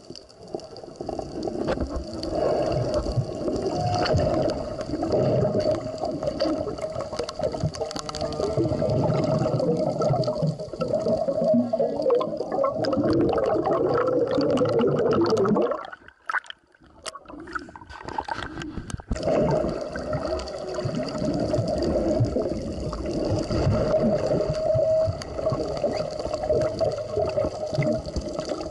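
Underwater sound heard through a camera's waterproof housing: bubbling, rushing water over a steady hum. It drops out for a few seconds about two-thirds of the way through.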